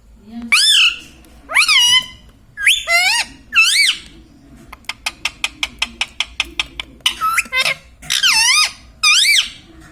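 A pet parrot screeching: loud squawks that bend up and down in pitch, four in quick succession, then a fast run of about a dozen short clicks, then three or four more squawks.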